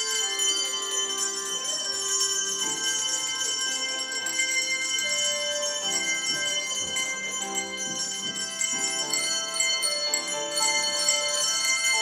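A children's set of coloured handbells playing a simple tune, one note after another, each note ringing on and overlapping the next.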